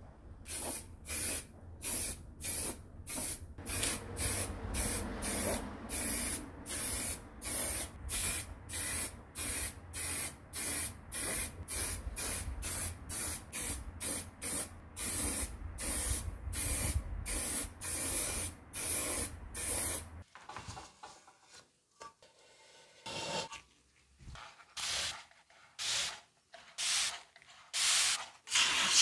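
Spray hissing in short, even bursts, about two a second, over a low steady hum. Some two-thirds of the way through the hum stops and the spraying becomes sparser and irregular.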